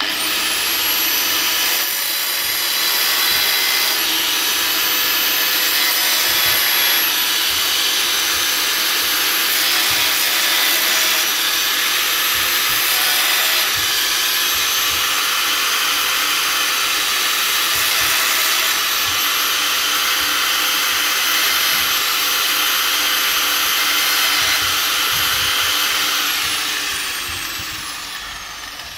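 Electric angle grinder starting up and cutting into a steel plate, its motor running with a steady high whine over the cutting noise. Near the end it is lifted off and switched off, and the whine falls away as the disc spins down.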